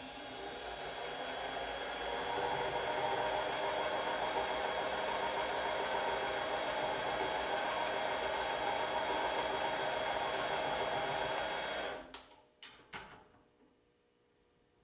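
Grizzly mini lathe running with brass tubing spinning in the chuck while a cutting tool works the end of the tube: a steady motor and gear whine that builds over the first couple of seconds. It stops abruptly near the end, followed by a few sharp clicks.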